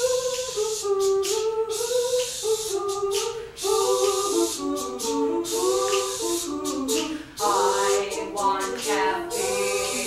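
A small group of voices singing a cappella, building up in layers: a single sung line at first, more voices joining about four seconds in and again near the end, with short hissing sounds among them.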